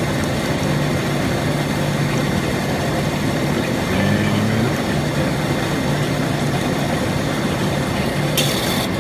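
Wire EDM machine running a cut through a steel LS truck oil pan submerged in its water tank: a steady machine hum under an even rush of noise, with a brief shift in the hum about four seconds in.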